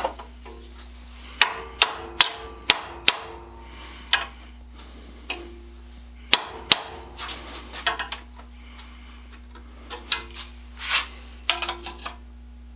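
A hammer tapping on metal parts, each blow ringing briefly: a quick run of about five strikes, then scattered taps and clinks, over a steady low workshop hum.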